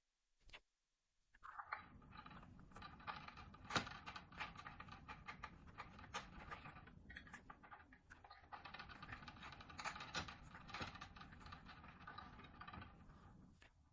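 Faint mechanical clicking and rattling, a dense run of small clicks over a steady hiss starting about a second in: hand work with tools on a fire alarm pull station as it is taken down.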